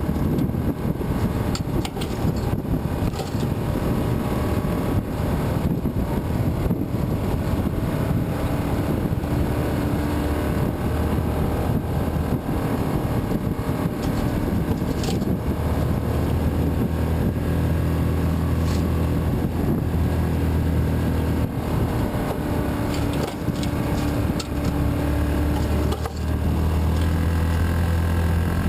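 Yamaha Rhino side-by-side's engine running as it drives a rough trail, its note shifting up and down with the throttle. A couple of brief sharp clicks partway through.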